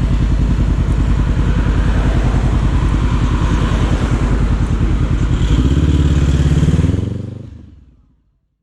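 Honda CB500F parallel-twin engine and exhaust running under way, picked up by a GoPro with a wind muff, with some wind rush. The engine note changes about five and a half seconds in, then the sound fades out to silence.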